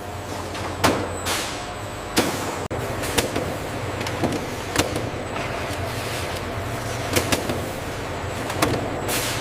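Factory machinery running with a steady hum, broken by irregular sharp clanks and a couple of short hisses, like air releases.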